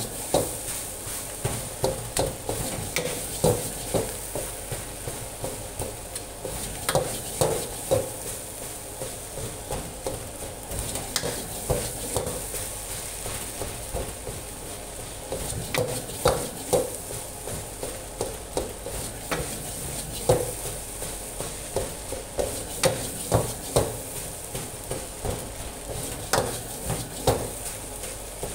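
Metal wok spatula scraping through fried rice and clanking against a steel wok in repeated, irregular strikes, over a steady frying sizzle.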